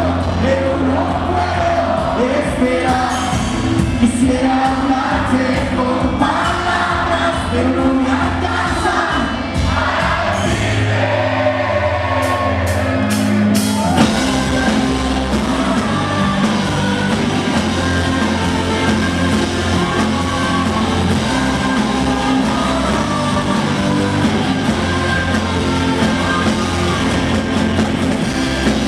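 Rock band playing live with sung vocals, electric guitars, bass and drums. About 11 seconds in the bass and drums drop out for about three seconds, broken by a few sharp hits, then the full band comes back in.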